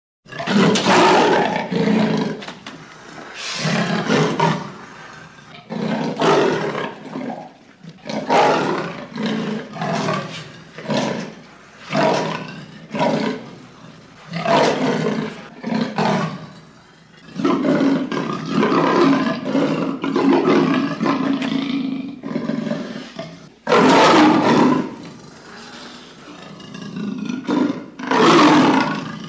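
A big cat roaring in a long string of calls, one every second or two, with a more drawn-out stretch a little past halfway.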